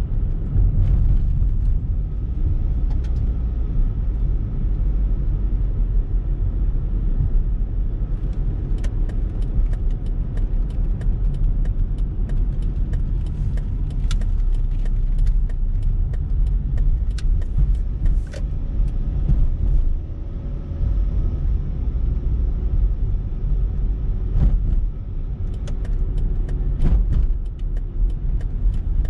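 Car driving, heard from inside the cabin: a steady low rumble of engine and tyres on the road, with scattered light clicks.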